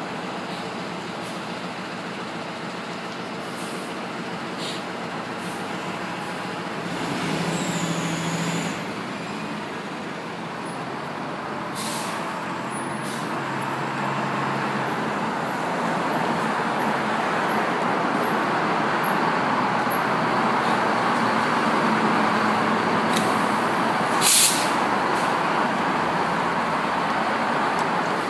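Vintage GMC diesel city bus approaching through street traffic, getting steadily louder as it nears and pulls in to the stop, then a short, sharp air-brake hiss near the end as it halts.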